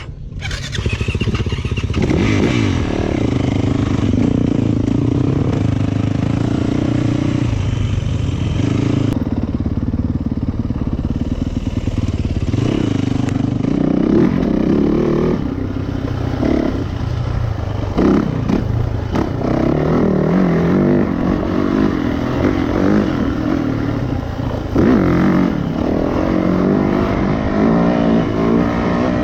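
2019 Yamaha YZ450FX's single-cylinder four-stroke engine being ridden hard off-road, its revs climbing and falling with throttle and gear changes, with occasional knocks from the bike over rough ground.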